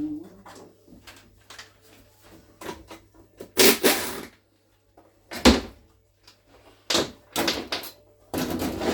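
Tools and metal parts knocking and clattering on a Renault Master gearbox casing as it is taken apart: scattered sharp knocks, with a short rushing burst about three and a half seconds in, a hard knock about five and a half seconds in, and a longer rushing stretch near the end.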